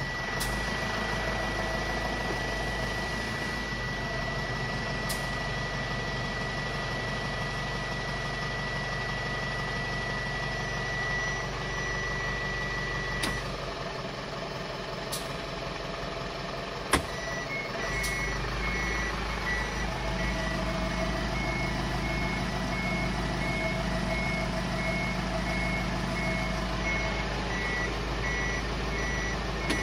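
Mitsubishi Fuso Canter's 4P10 four-cylinder diesel idling, with a steady high-pitched in-cab warning tone that stops about 13 seconds in. About 17 seconds in the Duonic gear selector clicks, and an intermittent reversing warning beep starts and keeps pulsing.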